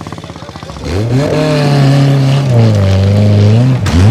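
A classic motorcycle engine beats faintly and evenly for about a second, then the 1700cc engine of a Troll T6E trials special comes in loud, revving hard up a loose climb, its pitch holding, falling, then dipping sharply and rising again near the end.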